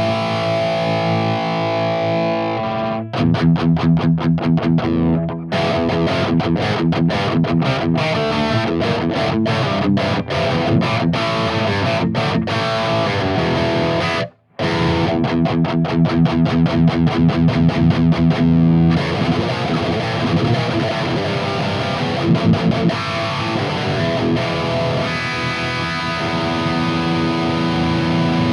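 Electric guitar played through a Mooer Brown Sound preamp pedal at high gain: held distorted chords alternating with fast palm-muted chugging riffs, with a short break about halfway through.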